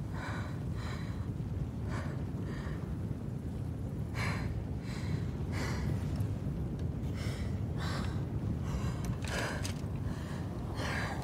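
A person gasping for breath in a series of short, ragged breaths, several of them coming in quick succession in the second half, over a low steady rumble.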